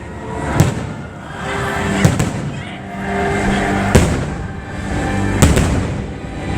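Fireworks bursting, four sharp booms about a second and a half apart, over the show's music.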